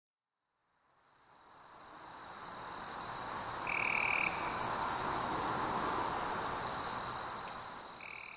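Nature ambience of frogs and insects calling: a steady high trill over a soft chorus, with a short call twice, about four seconds apart. It fades in over the first few seconds and fades out at the end.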